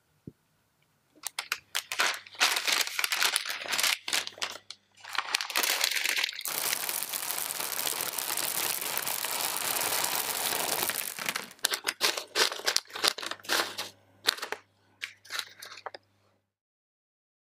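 Parchment paper crinkling as it is pressed into a tart tin. Then dried soybeans are poured onto it as baking weights for blind baking: a steady rattling pour of about five seconds, followed by scattered clicks as the beans settle and are spread.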